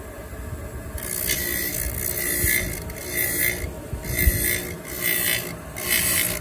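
XMD-02 blade grinding machine sharpening a flat blade: the grinding wheel rasps against the steel in repeated hissing bursts, about one a second, over a low steady hum.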